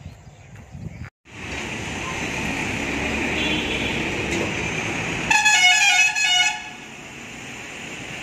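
Street traffic noise, with a vehicle horn sounding a quick run of changing notes for about a second, a little past the middle.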